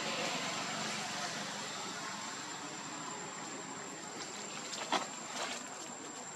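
Steady outdoor background hiss with a thin, high, unbroken tone over it, with a short sharp click or squeak about five seconds in.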